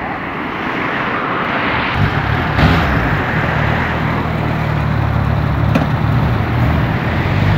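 Suzuki Hayabusa's inline-four engine starting about two seconds in and settling into a steady idle.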